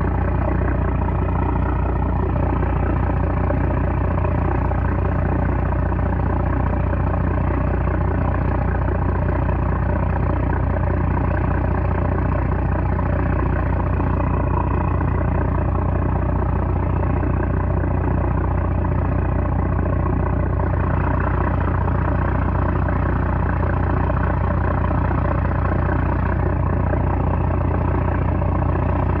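The trawler's 330-horsepower diesel engine running steadily with a deep, even drone.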